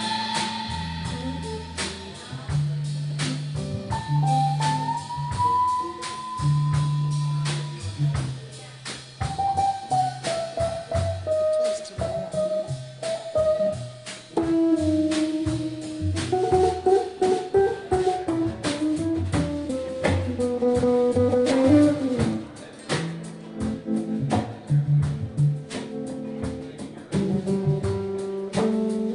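Live band playing an instrumental passage: an electric guitar plays a lead line with string bends, over bass guitar and a drum kit.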